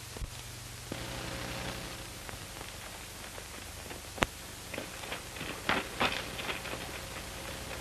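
Steady hiss of an old optical film soundtrack with scattered clicks and knocks: a single sharp crack about four seconds in and a short cluster of louder knocks around six seconds in.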